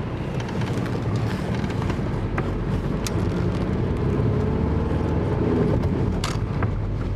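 Car engine running, heard from inside the car, with its pitch rising slightly midway and a few sharp clicks.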